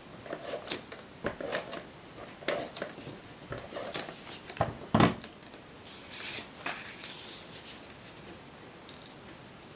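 Pink ATG adhesive transfer tape gun run along cardstock laying double-sided tape: a run of ratcheting clicks and short zipping strokes, the loudest about five seconds in, dying down after about seven seconds.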